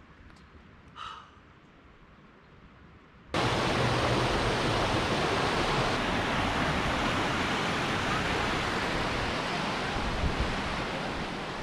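Quiet forest air with one brief soft vocal sound about a second in. About three seconds in, a loud, steady rush of flowing creek water cuts in abruptly and carries on.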